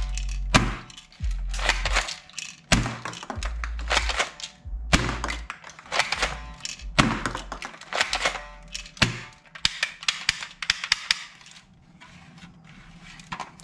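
Hollow plastic toy assault rifle being handled: irregular knocks, taps and clicks of its plastic parts, thinning out near the end, over background music with a low bass line.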